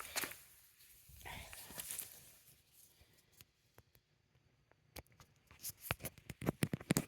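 Extension cords being handled and plugged together. There is rustling and scraping, a quiet pause, then a run of small sharp clicks and knocks that grows denser toward the end.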